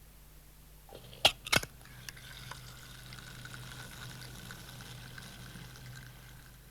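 Two sharp clicks, then a steady stream of liquid pouring and splashing for about five seconds before it stops.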